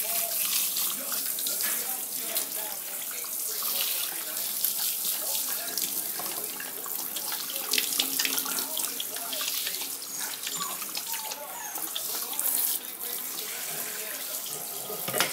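Kitchen sink pull-down sprayer running, spraying water over a puppy's coat and splashing into a stainless steel sink. The water shuts off at the very end.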